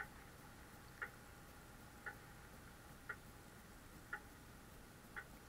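Electronic race-start timer beeping once a second, counting down to the start of a radio-controlled sailboat race. Six short, faint beeps, each a brief high chime.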